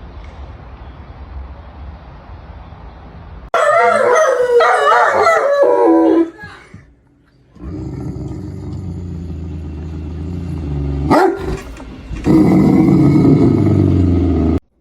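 A dog vocalizing in long, wavering, loud calls, in stretches that start and stop abruptly. There is a sharp click about eleven seconds in.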